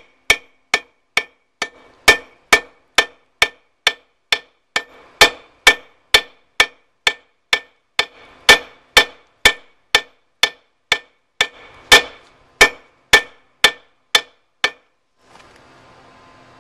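Hand hammer striking hot 1/2-inch rebar on a small anvil, about thirty ringing blows at roughly two a second, drawing out and flattening the jaws of a pair of tongs. The blows stop near the end.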